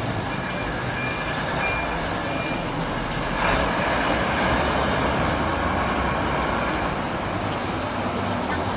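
Vehicle running with its reversing alarm beeping at an even pace over steady engine noise; the beeps stop about two and a half seconds in, and the noise swells louder about a second later.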